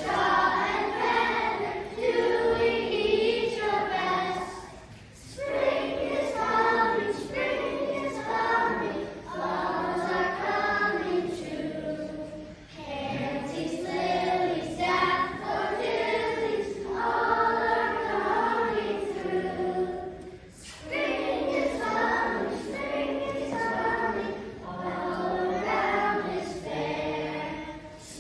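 A group of young children singing a song together, in phrases of several seconds with brief pauses for breath between them.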